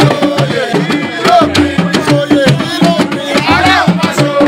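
Percussive music: hand drums struck in rapid, dense strokes with a singing voice gliding over them.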